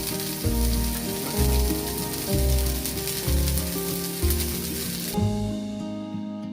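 Food sizzling in a hot pan, a dense steady hiss that cuts off about five seconds in, over background music with plucked notes and a steady bass beat.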